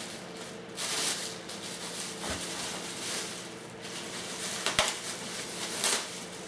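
Plastic bag rustling and crinkling as it is pulled off a heavy boxed part, with a sharp knock about five seconds in, over a low steady hum.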